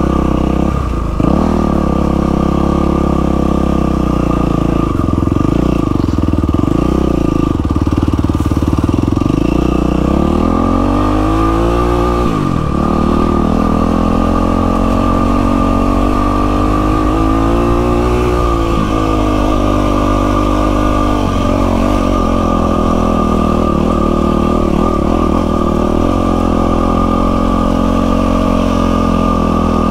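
Yamaha WR450F single-cylinder four-stroke dirt bike engine running under way on a trail, its revs climbing and dropping several times as it accelerates and shifts.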